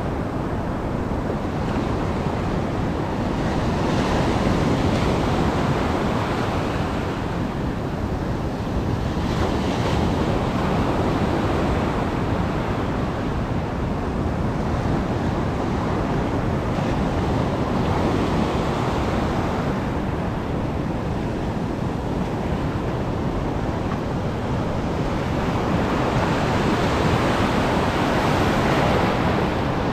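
Heavy surf from a rough sea breaking on the shore: a continuous rush of waves that swells louder every several seconds.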